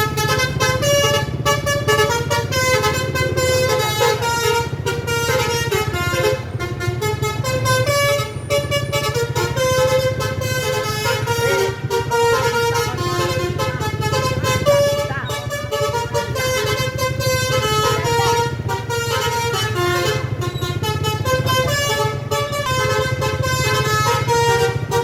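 Bus telolet horn, a multi-tone air horn, playing a long melody of stepped notes without a break, over a steady low rumble.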